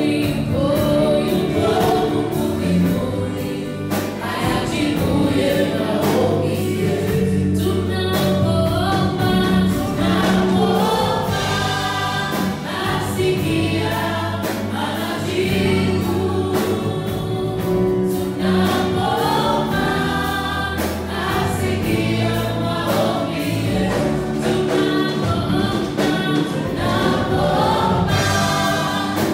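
Gospel praise song sung by a group of singers on microphones, over instrumental backing with a steady beat.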